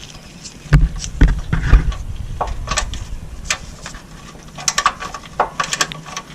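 Hand tools knocking and clicking against metal as the air suspension compressor's mounting bolts are worked loose. There are a few dull knocks in the first two seconds, then scattered sharp clicks.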